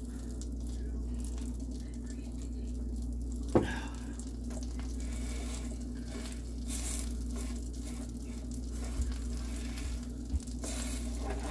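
Pancakes sizzling quietly in a nonstick frying pan over a steady low hum. There is one sharp knock about three and a half seconds in and a few light clicks near the end.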